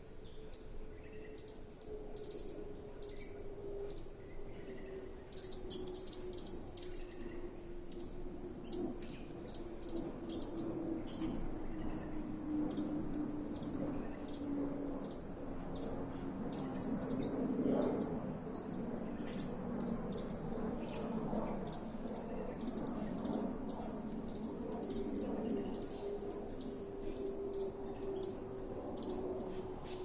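Tropical forest ambience: rapid, repeated high chirps from birds or insects, thickening about five seconds in, over a steady high insect drone. Beneath them runs a low hum that slowly falls in pitch and then rises again.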